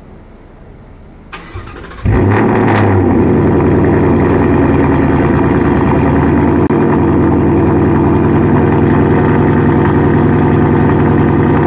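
2018 Ford Mustang GT's 5.0 Coyote V8, uncorked with MBRP muffler deletes and an SR Performance X-pipe, cold-started. The starter cranks briefly, and about two seconds in the engine fires with a short rev flare, then settles into a loud, steady fast idle.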